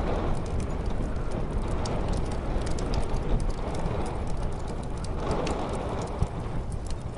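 Wood fire crackling with many small sharp pops, over a low muffled rumble of snowstorm wind that swells and eases in gusts.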